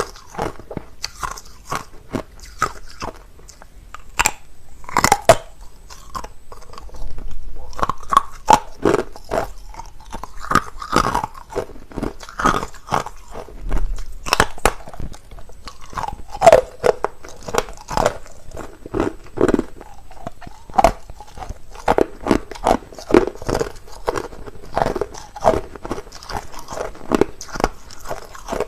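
A person biting and chewing hard, clear crushed ice close to the microphone: a continuous run of loud, sharp crunches and cracks, several a second.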